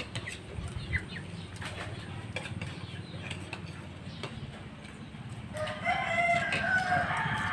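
A rooster crowing once near the end, a long held call, over light clinks of spoons against plates.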